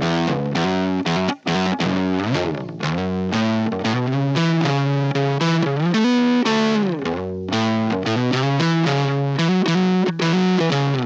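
Fuzzed Precision bass played with a pick through a germanium fuzz pedal set to full fuzz, with the bass's volume knob rolled back. It is a busy riff of quickly picked notes, with sliding notes about two seconds in and again around six seconds in.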